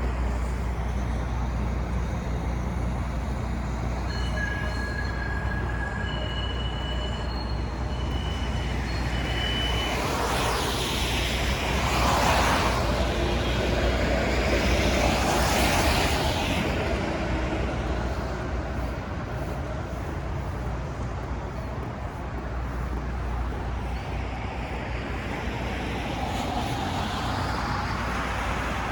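Road traffic: a steady low rumble with vehicles passing by, two loud pass-bys about 10 to 16 seconds in and another near the end.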